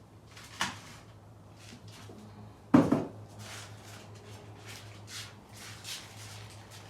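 Objects being handled: scattered short rustles and scrapes, with one sharp knock a little under three seconds in, over a steady low hum.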